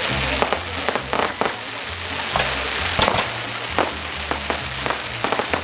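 Fireworks display: aerial shells going off in irregular sharp bangs, a dozen or so, with crackling between them.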